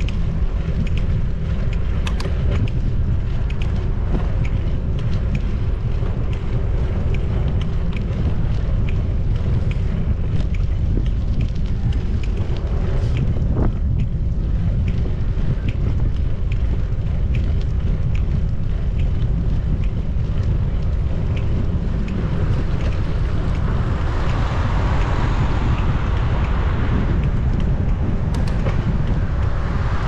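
Wind buffeting a GoPro 10's microphone while riding a bike, a steady heavy low rumble. A louder rushing hiss swells up over the last several seconds.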